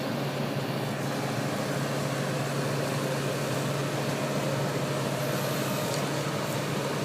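A crane's engine running steadily with a constant low hum, holding the same pitch throughout.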